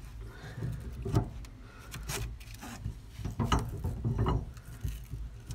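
Hands working a strap around a Hi-Lift jack's handle: rubbing of the strap with scattered clicks and knocks of the jack's metal parts as the strap is cinched to hold the handle tighter.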